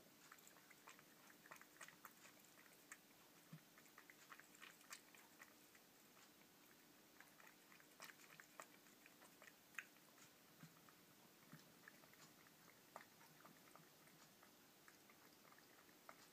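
A cat chewing its food: faint, irregular clicks and crunches of biting and chewing, in uneven clusters.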